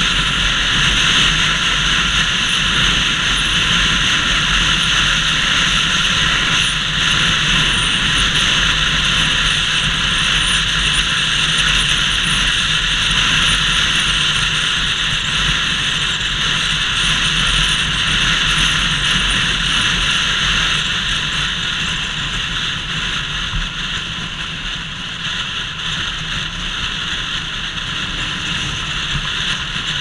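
Wind blast roaring over a helmet-mounted action camera while riding a Bajaj Pulsar RS200 motorcycle at road speed, with the bike's single-cylinder engine running underneath. The noise is steady and eases off a little about two-thirds of the way through.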